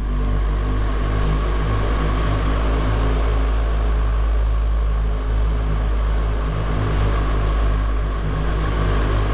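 Motorcycle engine running steadily at a constant pace while riding through a tunnel, a continuous low rumble with no change in speed.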